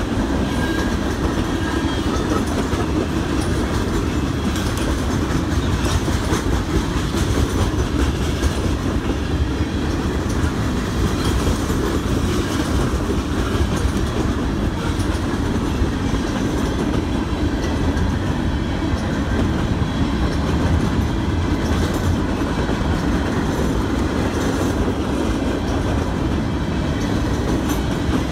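Freight train cars rolling steadily past: tank cars, then gondolas, with a continuous low rumble and the clickety-clack of wheels over the rails.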